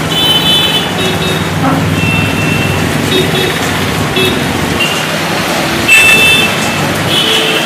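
Street traffic in steady rain: a constant hiss of rain and tyres on wet road under running engines, with about six short, high horn beeps.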